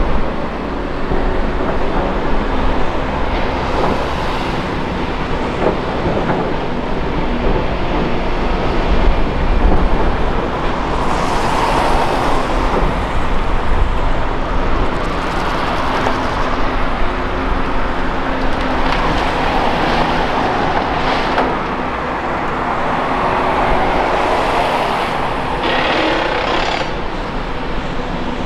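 Volvo ECR235E excavator running steadily under working load, digging and loading dirt and rocks into a Volvo A30G articulated dump truck. A few louder, noisier stretches rise over the steady engine drone.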